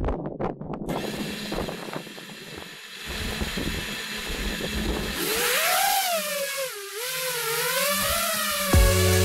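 A few clicks, then an FPV quadcopter's brushless motors spin at idle with a steady high whine. About five seconds in the whine starts to rise and fall in pitch as the throttle changes. Electronic music comes in near the end.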